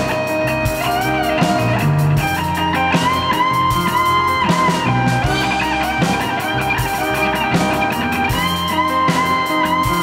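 Live rock band playing an instrumental passage: an electric guitar plays a lead line with bent, held notes over electric bass, drums and piano.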